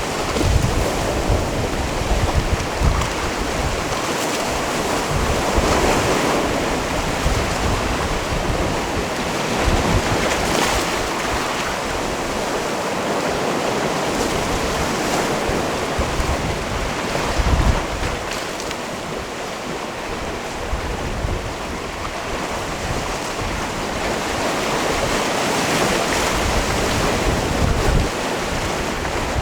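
Sea waves washing against a rocky shore: a continuous wash that swells every few seconds as each wave breaks. Wind buffets the microphone in low rumbles.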